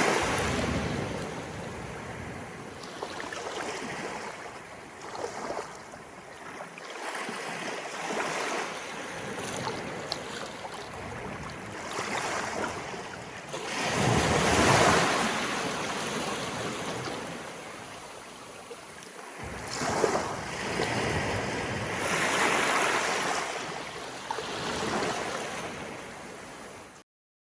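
Sea waves washing in on an incoming tide, swelling and falling in irregular surges of splashing and flowing water, with the loudest wash about halfway through. The sound cuts off abruptly just before the end.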